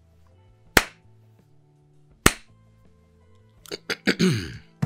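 Three sharp hand claps, about a second and a half apart, then a quick cluster of clicks and a short falling sound near the end.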